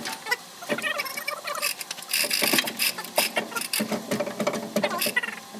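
Metal tools and parts being handled in workshop repair work: an uneven run of sharp clicks and clanks, with a denser rattling clatter about two seconds in.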